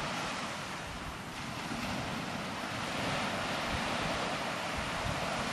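Steady wash of small waves breaking on a sandy beach, with light wind buffeting the microphone now and then.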